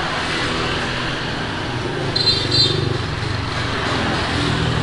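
Road traffic: motor vehicles running past in a steady rumble, with two short high beeps a little over two seconds in.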